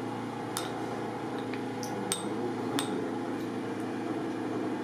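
Light metallic clinks, about six, at uneven intervals: a steel needle tapping against the metal holding cup while a cricket ball core is hand-stitched. A steady low hum runs underneath.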